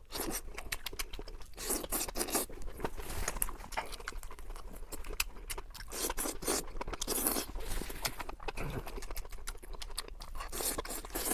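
A person eating seafood close to the microphone: irregular crunching, chewing and wet mouth clicks, with scraping noises between.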